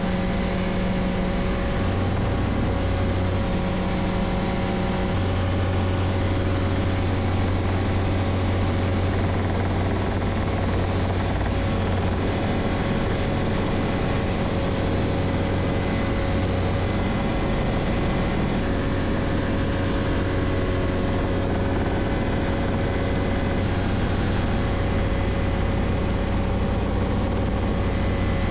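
Light helicopter's engine and rotor running steadily, heard from inside the cockpit, with a constant low hum.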